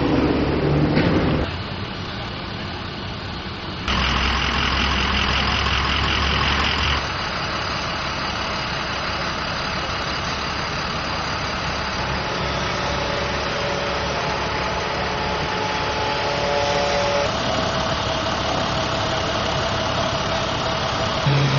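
Motor vehicle engines idling at close range, with road noise, a tow truck's engine among them. The sound changes abruptly several times, with a louder, hissing stretch from about four to seven seconds in.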